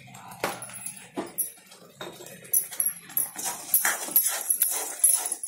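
Ladle stirring thick masala in a black iron kadai: several sharp knocks of the ladle against the pan, then from about halfway on a steady hissing scrape as it is stirred round.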